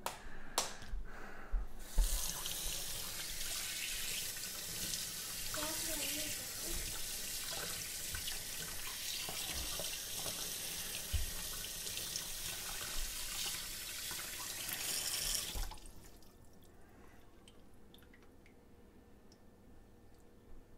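Kitchen tap running onto a gutted brook trout and splashing into a stainless steel sink as the fish is rinsed out. The water starts about two seconds in and cuts off sharply about three-quarters of the way through.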